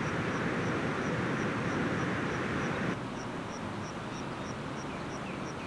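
Steady outdoor rushing noise with a faint high chirp repeating about three times a second. About three seconds in, the rushing noise drops and becomes duller.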